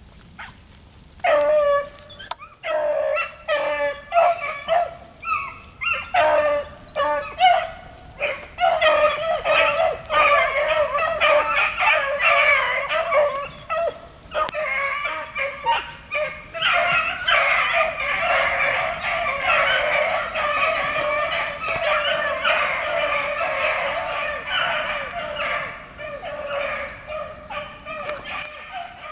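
A pack of beagles baying while running a rabbit on the trail. Separate calls come a second or so in, then build into a continuous overlapping chorus of many voices that thins out near the end.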